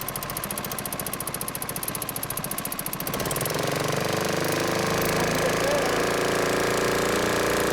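Brand-new boat motor running with a fast, even metallic pinging that the owner cannot explain. About three seconds in it gets louder and settles into a steadier run.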